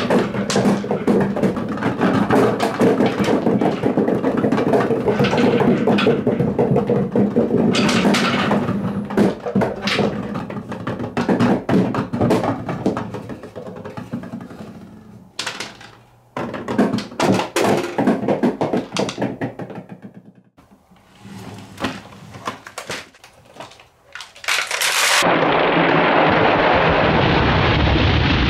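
Glass marbles, wooden balls and plastic balls clattering down wooden ramps and dropping into a toy dump truck's plastic bed: a dense rapid clatter of clicks and knocks that thins into scattered bursts with pauses after about 15 seconds. About 25 seconds in it changes suddenly to a steady rushing sound as a load of marbles slides out of the tipped truck bed.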